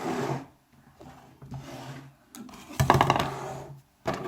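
Rubbing and scraping of things against a hard surface, in several bursts, the loudest about three seconds in.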